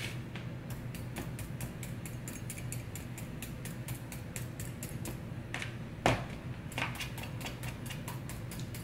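A fork jabbing repeatedly into raw potatoes to poke holes in them before baking: a quick series of sharp clicks, about three or four a second, with one louder knock about six seconds in.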